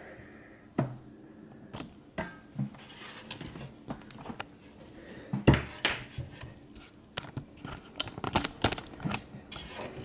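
Metal furnace housing and tools being handled on a table: scattered light clicks, taps and clinks, with a louder knock about five and a half seconds in and a quick run of clicks near the end.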